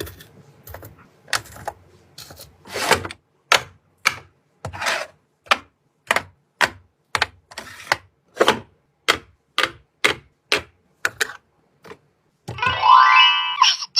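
Hard plastic toy pieces and packaging clicking and tapping as they are handled, in short sharp knocks about two a second. Near the end a loud rising whine lasts about a second and a half.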